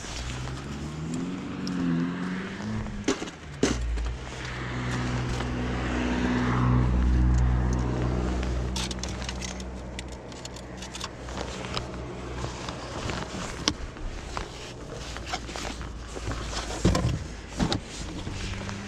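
A car engine running, its low hum wavering in pitch early on and swelling about six to eight seconds in, with scattered knocks and rattles of gear being moved.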